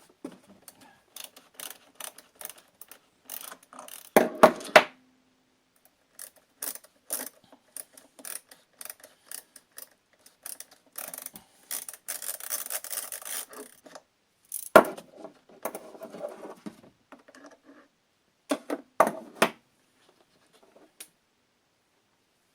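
Clicks, scrapes and rattling of tools and plastic housing parts as the carburetor baffle is unscrewed and lifted off a Stihl BR 600 leaf blower, with a few louder knocks of parts being set down, about four seconds in, near the middle and twice around nineteen seconds.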